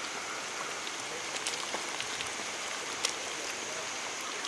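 A big pot of country-chicken masala gravy boiling, a steady bubbling hiss with a few faint pops.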